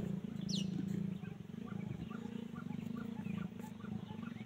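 Wild birds calling in the canopy: a high falling whistle about half a second in, then a run of short chirps several a second, over a steady low pulsing drone.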